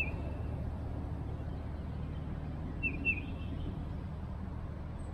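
Songbird chirping outdoors: a short note at the start and two quick downward chirps about three seconds in, over a steady low background hum.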